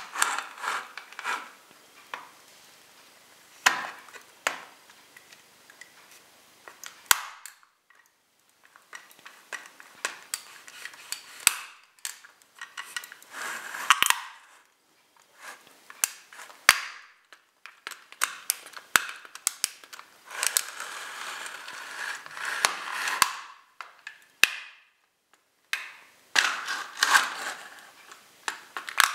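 A plastic toy semi-trailer truck creaking, crackling and snapping under the sole of a high-heeled boot pressing down on it, in irregular bursts with sharp clicks.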